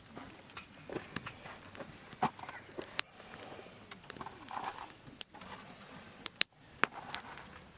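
Wood fire crackling, with irregular sharp pops over a low hiss; the loudest pops come about three seconds and about six and a half seconds in.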